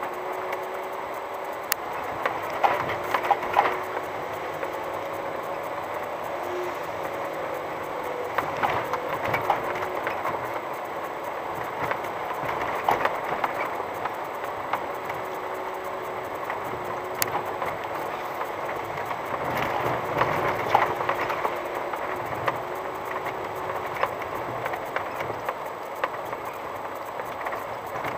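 VW T5 van crawling slowly along an unpaved gravel track, heard from inside the cabin: a steady drive-along hum and tyre noise with bursts of rattling and knocking every few seconds as the van goes over stones and bumps.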